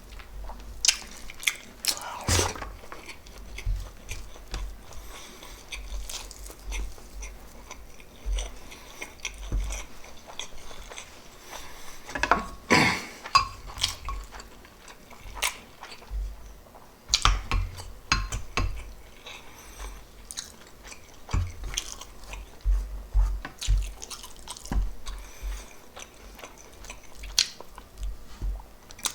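Close-miked eating of pork adobo and rice: irregular wet chewing and smacking with occasional sharp clicks, likely utensils on the plate.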